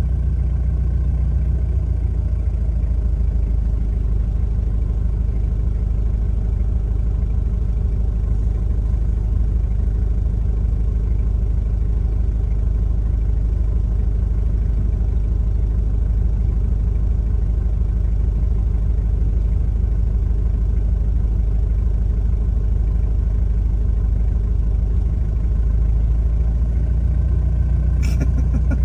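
Car engine running with a steady low rumble, heard from inside the car, growing slightly heavier in the last few seconds.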